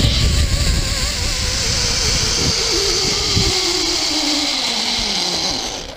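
Zipline trolley pulleys running along the steel cable: a whine that falls steadily in pitch as the trolley slows, over a rushing hiss. Wind buffets the microphone through the first half, and the sound dies away just before the end.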